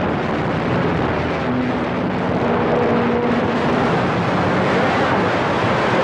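Cobra CB radio receiver hissing with steady static between transmissions, the S-meter showing a signal; a faint humming tone rises out of the noise for a couple of seconds partway through.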